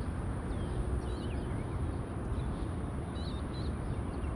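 Steady outdoor background noise with small birds chirping faintly now and then, short high chirps scattered throughout.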